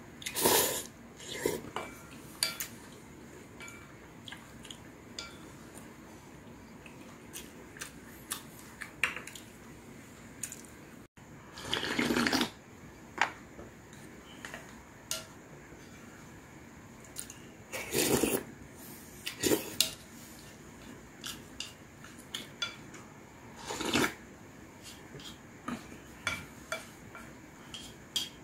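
Eating seaweed soup: several spoonfuls slurped in short noisy bursts, between light clinks and taps of a wooden spoon and chopsticks against a ceramic bowl. Near the end the bowl is tipped up and drunk from.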